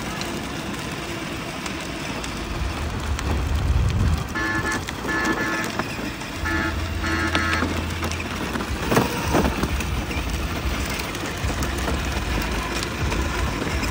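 Child's battery-powered ride-on toy jeep driving over paving, with a low motor hum that comes and goes. About four seconds in comes a run of five short electronic horn beeps.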